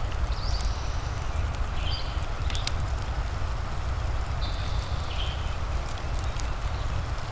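Wood fire crackling with scattered sharp pops over a steady rain-like hiss and low rumble, with a few short high chirps in between.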